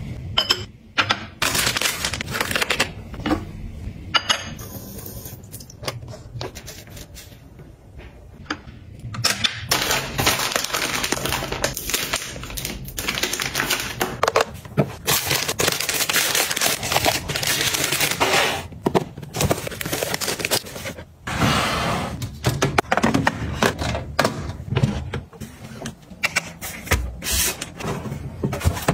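Close-up handling sounds in quick succession: many small clicks and taps, with stretches of rustling, as toiletry containers and packs are set in place. Near the end, a lidded storage box is pushed onto a shelf.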